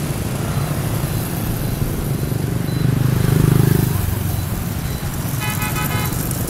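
Street traffic of motor scooters running steadily, one engine swelling louder as it passes about three seconds in. Near the end a horn gives a quick string of short beeps.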